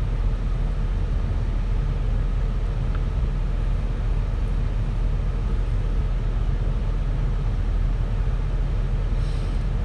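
Ford F-350 pickup's engine idling steadily, a low, even rumble heard from inside the cab.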